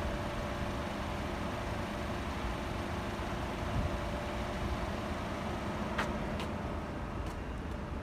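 Steady engine rumble with a droning hum, mixed with low wind buffeting on the microphone. Two sharp clicks come about six seconds in.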